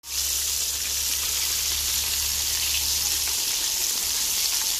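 Flour-coated chicken drumsticks deep-frying in hot oil in an aluminium pot: a steady sizzle with small scattered pops.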